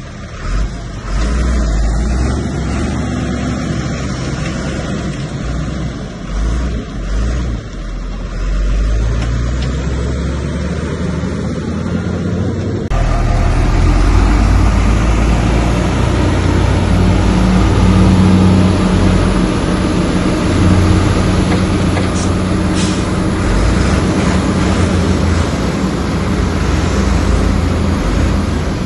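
Diesel engine of heavy earthmoving machinery running steadily with a low rumble. The sound changes abruptly about halfway through and is louder after that.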